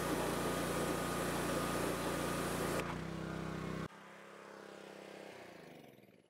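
Gas-engine pressure washer (3100 PSI) running steadily, its high-pressure jet hissing loudly against the vehicle's underside. The spray stops a little under three seconds in while the engine keeps running; it then runs on fainter and dies away near the end.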